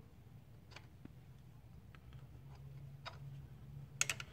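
Light, scattered metal clicks as the tip of a magnetic pickup tool taps against a hydraulic lifter in its bore, with a quick double click near the end, over a faint low hum. The lifter is stuck and will not come up, typical of the ridge that builds on the underside of a high-mileage lifter.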